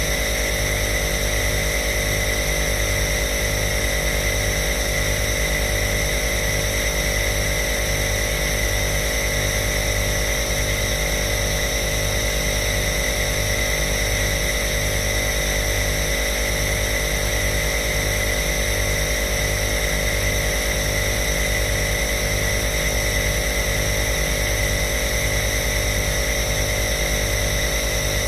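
Compressor nebuliser (inhaler) running steadily: a motor hum with an even, rapid pulse in its low end and a constant hiss of air.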